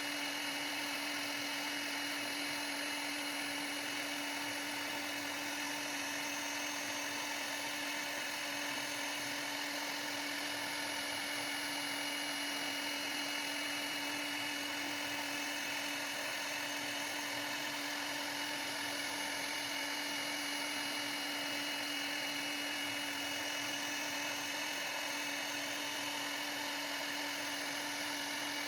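CNC router spindle running steadily with a high, even whine over a hiss, as it carves a plaque.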